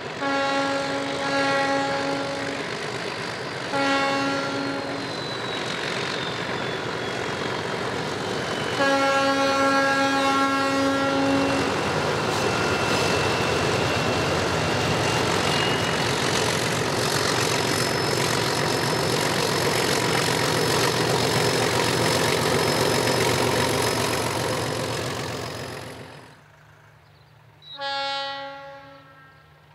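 ALCO DL 537 diesel locomotive sounding its single-tone horn: a long blast, a short one, then another long one, over the loud, steady running noise of the passing train. Near the end the running noise falls away and one shorter, fainter horn blast follows.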